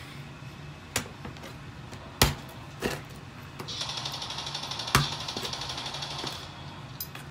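A kitchen knife cutting crispy fried pork belly on a plastic cutting board: several sharp knocks of the blade hitting the board, and for about three seconds in the middle a steady crunching as the blade saws through the crisp skin.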